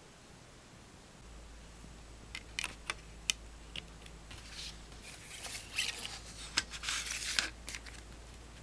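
Handling of a plastic CD jewel case: a few sharp plastic clicks as the disc is pressed at the case's centre hub, then rubbing and scraping with more clicks as the paper booklet is slid out of the case.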